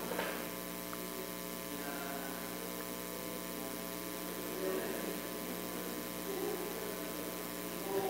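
Steady electrical mains hum made of several constant tones, with a faint click just after the start.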